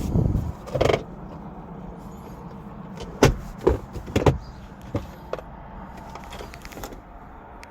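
Knocks and thumps from handling the wrecked car: a heavy thump at the start and another just under a second in, then a string of sharp clacks and knocks from about three to five and a half seconds in, and one more near the end.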